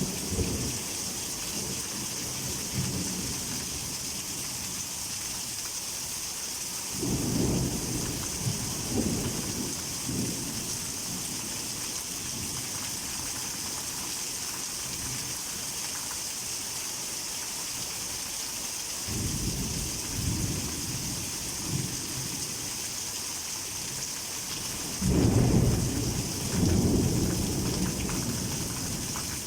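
Heavy tropical rain falls steadily as an even hiss. Thunder rolls in three times, low and rumbling: about a quarter of the way in, again around two-thirds through, and loudest near the end.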